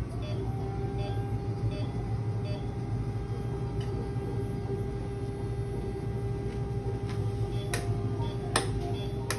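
Steady low hum of running clinic equipment with a constant mid-pitched tone, faint repeated beeps, and a few sharp clicks near the end.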